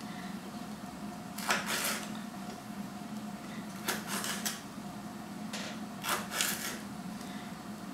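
Knife slitting Padrón peppers on a marble chopping board: three short scraping cuts, about two seconds apart, over a low steady hum.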